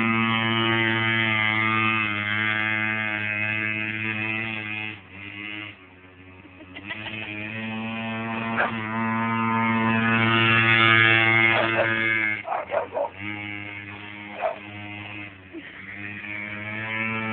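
Small mini bike engine running with a steady buzz. It drops away around five to six seconds in and picks up again, with a few short, sharp sounds over it later on.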